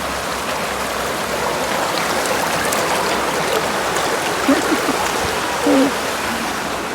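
Floodwater rushing steadily after heavy rainfall. Two short calls rise above it about halfway through.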